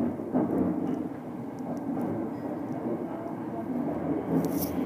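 Subway train running through a tunnel, heard from inside the front car: a steady low rumble with scattered light clicks and a faint wavering motor whine, and a short hiss about four and a half seconds in.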